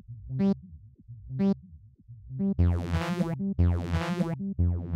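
Synthesizer notes from FL Studio's 3x Osc played through the Vintage Phaser plugin, with its delay mixed fully in. Two short notes come about a second apart, then from about halfway longer, louder notes with a sweeping, phased tone.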